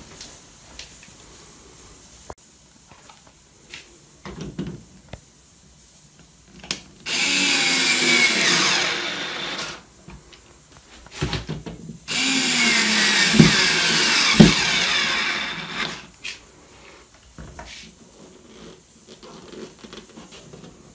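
Power screwdriver running in two bursts of about three and four seconds, driving screws through slim TV-mount brackets into plastic wall plugs. Its pitch drops in the second run, with small clicks and knocks of handling the bracket between runs.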